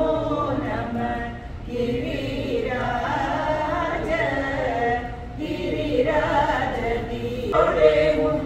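A group of voices chanting together in unison, a devotional chant sung in phrases a few seconds long with short gaps between them.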